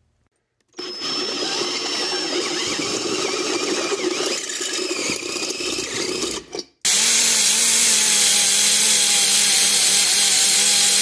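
A drill with a step bit cutting a hole through a stamped-steel differential cover for about six seconds. After a brief cut, a die grinder with a small sanding disc runs steadily at high speed, deburring the new hole, and this is louder than the drilling.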